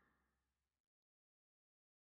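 Near silence: the last trace of a fade-out, then dead digital silence.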